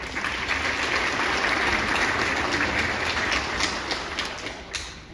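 Audience applauding. It swells at once, holds for a few seconds and dies away about four and a half seconds in.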